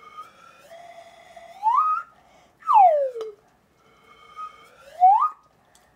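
Toy slide whistle blown, its pitch sliding up, then swooping down, then sliding up again.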